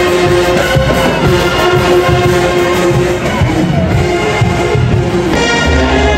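Marching band brass playing held notes, with a fuller, deeper chord coming in near the end.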